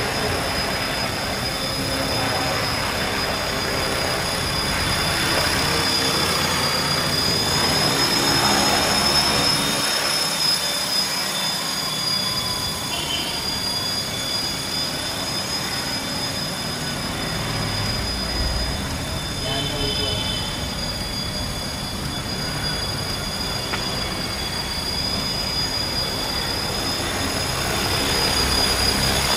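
450-size flybarless RC helicopter in flight: a steady high-pitched whine from its brushless motor and drivetrain over the rotor noise, drifting slightly in pitch with the throttle.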